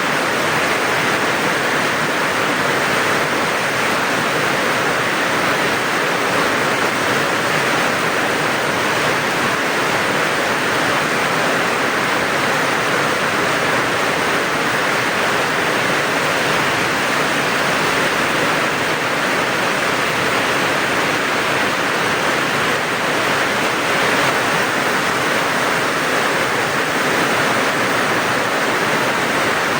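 Steady heavy rain, an even rushing hiss with no single drops or other sounds standing out.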